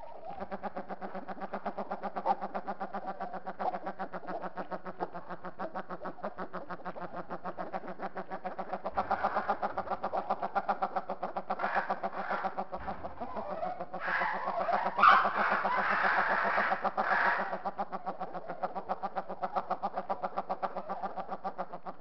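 Caged birds calling in a fast, steady run of repeated notes, growing louder and fuller for a few seconds about two-thirds of the way in.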